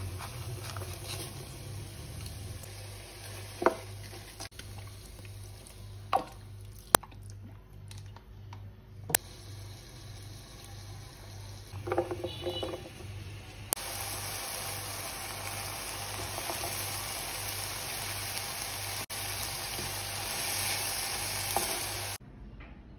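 Vegetables and shredded chicken stir-frying in a nonstick frying pan: a steady sizzle with a few sharp knocks of the spatula against the pan, a brief clatter as green pepper is tipped in about halfway, then louder sizzling and stirring. A low pulsing hum runs underneath.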